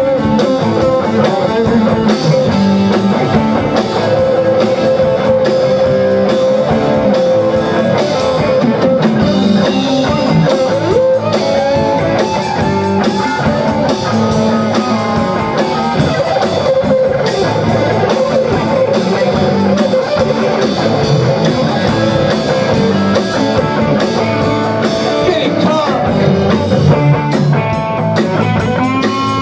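A rock band playing together loudly and steadily: two electric guitars, an electric bass and a drum kit.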